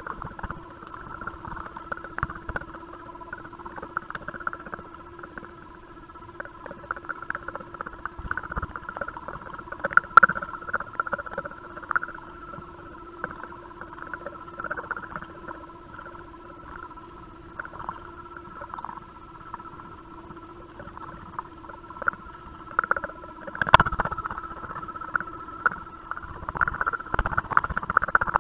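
A steady electronic hum with several held tones, under scattered scratching and light knocks. The loudest knocks come about ten seconds in and again near 24 seconds in. These sounds most likely reach the microphone as vibration through the camera's mount and housing.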